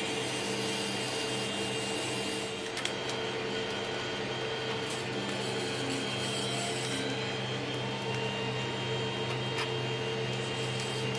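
A 3D printer running: a steady machine hum made of several held tones from its stepper motors, one of them cutting in and out every second or two as the moves change, with a few faint clicks.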